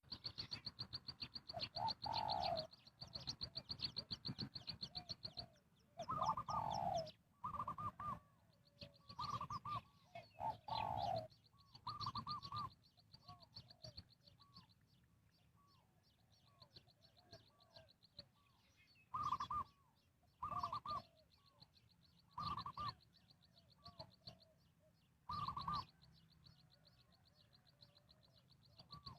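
Spotted doves cooing in short repeated phrases of a few notes, a handful loud and close with fainter coos answering between them. A fast, high chirping trill runs underneath for long stretches.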